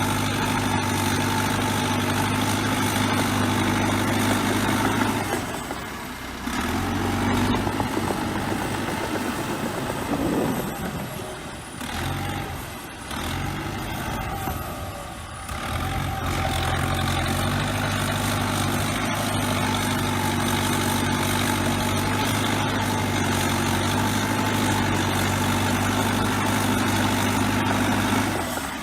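Bulldozer diesel engine running steadily. It eases off a few times between about 6 and 16 seconds in, then settles back to a steady note.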